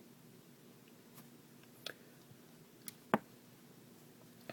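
A few light clicks of the metal parts of a Wenger Swissgrip multi-tool and its screwdriver bits being handled, the loudest a little past three seconds in.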